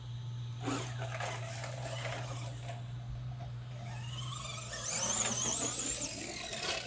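Electric motor of a Tamiya Midnight Pumpkin RC monster truck whining under throttle. The whine rises and wavers in pitch from about four seconds in, then drops away near the end.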